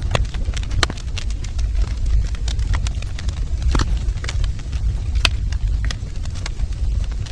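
Wood fire in a fireplace crackling: irregular sharp snaps and pops over a low steady rumble of the burning fire, with a few louder pops standing out.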